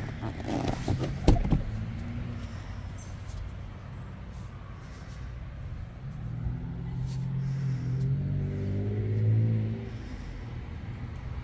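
A few knocks and clatters in the first second and a half, one of them a sharp knock. Then a motor vehicle engine hum swells over a few seconds, rising a little in pitch and loudest shortly before it drops away.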